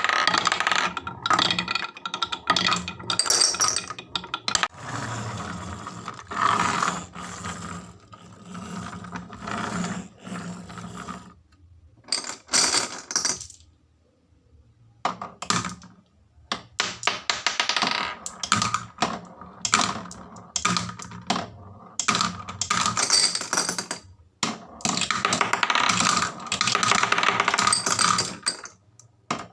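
Marbles rolling and clattering down wooden HABA marble-run slopes: long runs of rapid clicks and rattles, broken by a brief lull near the middle.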